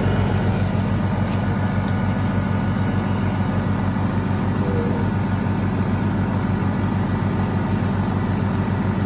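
Honda portable inverter generator running steadily on natural gas piped from the house line. It makes a low engine hum with a fast, even pulse.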